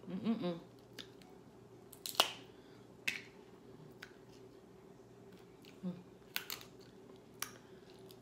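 Crab leg shells cracking and snapping as they are broken open by hand: sharp separate cracks about a second apart, the loudest about two seconds in.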